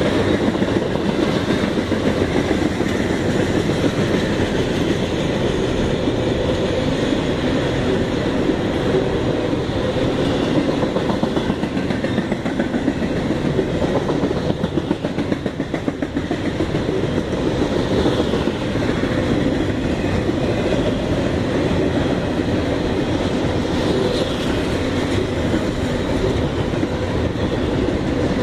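Double-stack intermodal freight cars rolling past, their steel wheels making a steady rumble with a dense fast clatter on the rails.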